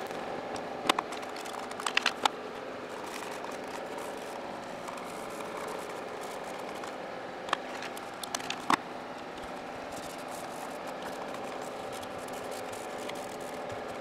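Hard plastic clicks and knocks from Panasonic cordless-phone charging cradles being handled and set down during cleaning. They come in a few clusters: about a second in, around two seconds, and between seven and a half and nine seconds, over a steady background hum.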